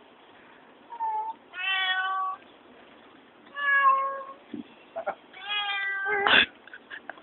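Domestic cats meowing: four meows, the first short and the others drawn out, some rising and falling in pitch. A sharp knock comes right after the last meow, near the end.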